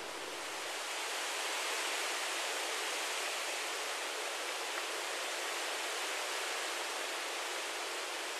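Steady rushing hiss with almost no low end, like rushing water or wind, swelling a little about a second in and then holding level.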